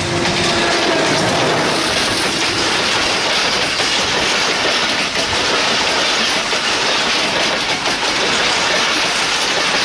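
Diesel-hauled passenger train passing close by: the locomotive goes past at the start, then the coaches roll by with a steady loud rumble and the clatter of wheels over the rail joints.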